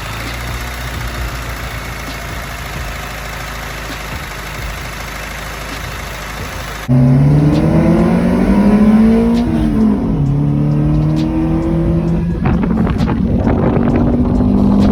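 Honda Civic four-cylinder engine running on a freshly fitted set of fuel injectors. For the first seven seconds it is a steady noisy running sound. Then it abruptly turns louder, and the engine note rises and falls as it is revved.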